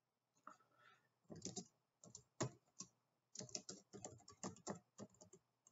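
Quiet typing on a computer keyboard: a run of quick, irregular keystrokes starting about half a second in.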